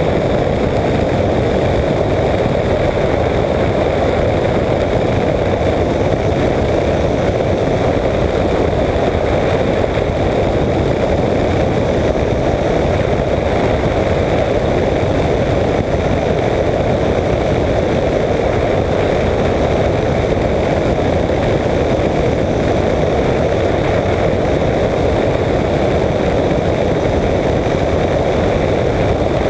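Apollo Jet Star microlight trike's engine and pusher propeller running steadily in level cruise flight, a constant drone that does not change, mixed with wind rush over the wing-mounted camera.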